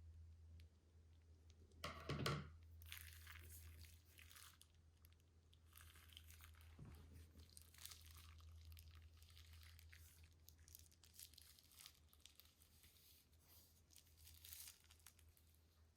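Soft, irregular crinkling and crackling of plastic piping bags and slime being handled, with a louder burst about two seconds in, over a steady low hum.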